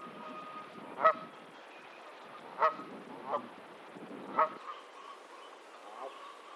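Canada goose honking: three loud honks about a second and a half apart, with a softer honk between the second and third.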